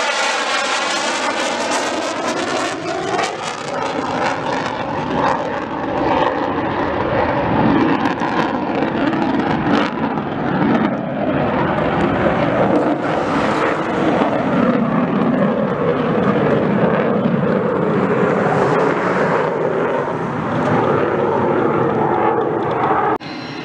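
F-35 fighter's F135 turbofan jet noise, loud as the jet passes close by, with a sweeping whoosh in its tone during the pass. It then carries on loudly as the aircraft climbs away, and cuts to a quieter background near the end.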